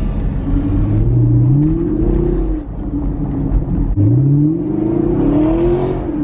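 Chevrolet Camaro ZL1's supercharged V8 accelerating hard in two pulls. The engine pitch climbs, drops about two and a half seconds in, then climbs again from about four seconds in.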